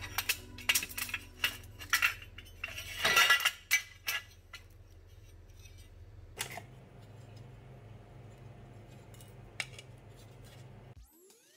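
Aluminium heatsinks clinking and clattering against each other and a metal shelf as they are handled. A quick run of sharp clinks is loudest about three seconds in, followed by a few isolated knocks.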